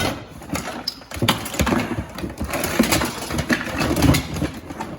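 Loose car parts being rummaged through and handled: irregular clattering and knocking as pieces are shifted and pulled out.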